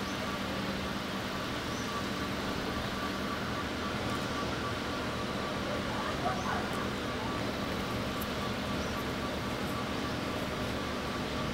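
KiHa 58-series diesel railcar idling while it stands at the platform: a steady, even engine hum with a thin higher tone held over it.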